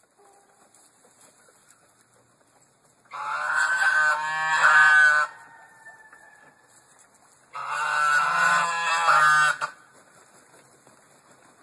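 Geese honking in two loud bouts of about two seconds each, one about three seconds in and one about seven and a half seconds in.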